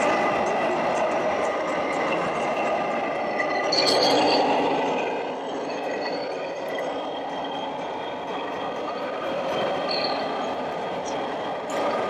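Radio-controlled model heavy-haul truck running, a steady mechanical sound with a thin high whine, over the busy noise of an exhibition hall; it swells briefly about four seconds in.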